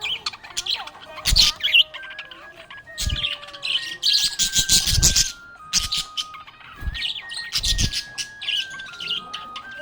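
Budgerigar chirping and warbling in quick bursts, over background music with held notes stepping up and down. Several short, dull thumps cut in among the chirps.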